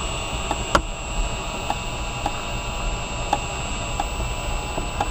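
Windshield wire cut-out winder, turned by a cordless drill, pulling its cutting wire slowly through the urethane bead: light, regular clicks about twice a second over a steady hiss.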